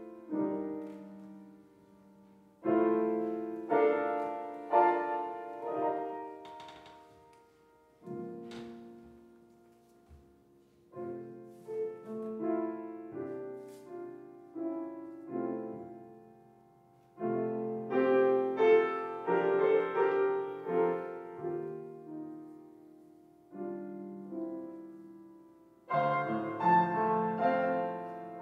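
Grand piano played solo: slow chords in short phrases, each struck and left to ring and fade, with brief pauses between the phrases.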